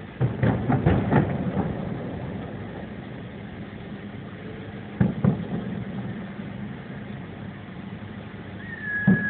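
Fireworks shells bursting: a quick run of several loud bangs in the first second and a half, two more about five seconds in, and another near the end. Under them runs the steady hum of a car engine idling in traffic.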